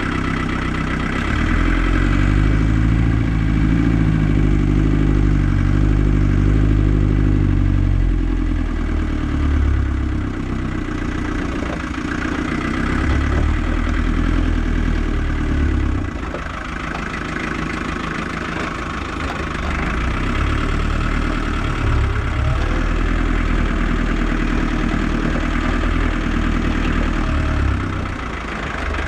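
Land Rover 110's engine running under way, heard from inside the cab, its note stepping up and down several times with changes of speed and gear.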